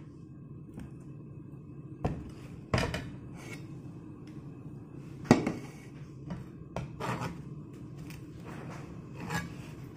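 A kitchen knife cutting melon on a cutting board, with a steel bowl being handled. The knife and bowl give scattered sharp knocks, about seven in all, the loudest about five seconds in.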